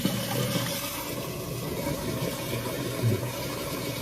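Water running steadily into a balcony floor drain.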